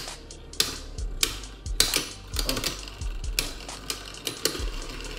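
Two Beyblade Burst spinning tops, Sparking Hyperion R and Dynamite Belial, clashing in a plastic stadium, giving a rapid, irregular series of sharp clicks and knocks.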